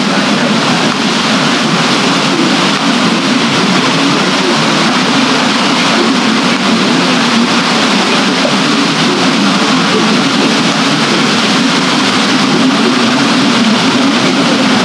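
Steady rushing of water from a water wheel and the river flowing past it, an even, unbroken noise.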